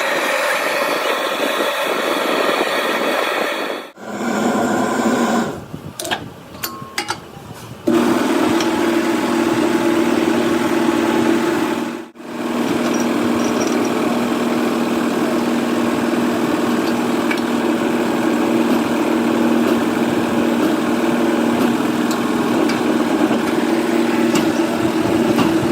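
Welding on a broken wheel rim: a steady hissing crackle over a low steady hum from the welding machine, with abrupt breaks a few times.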